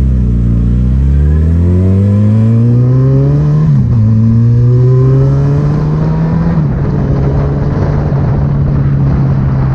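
Yamaha XJ6 motorcycle engine accelerating hard. The pitch climbs, drops at a quick gear change just under four seconds in, and climbs again. After a second shift a little past six seconds it holds a steady pitch.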